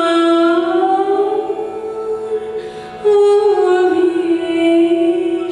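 Female voice singing slow, long-held notes to steady harmonium accompaniment; a new, louder phrase begins about three seconds in.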